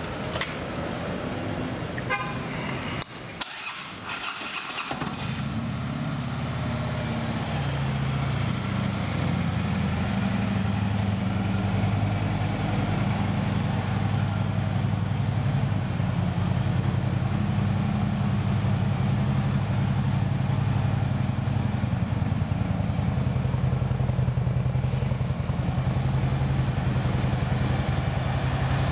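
A 2010 Harley-Davidson Ultra Classic's fuel-injected Twin Cam 96 V-twin, fitted with Screamin' Eagle slip-on mufflers, starts up a few seconds in and then idles steadily. A couple of clicks come just before it starts.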